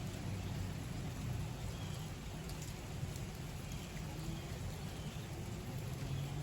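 Steady rain falling during a thunderstorm, with scattered drop ticks over a low, constant rumble.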